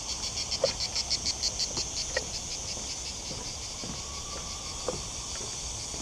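A dense chorus of unseen insects singing in the pine trees, which the walker takes for crickets. The high shrilling pulses about seven times a second for the first few seconds, then settles into a steadier buzz.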